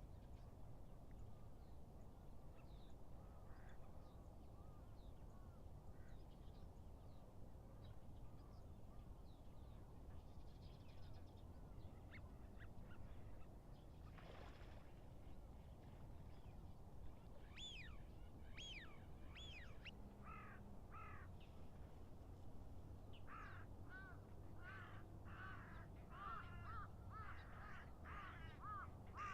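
Faint outdoor hush with distant bird calls: scattered at first, then a run of harsh repeated calls in the second half that grows denser near the end.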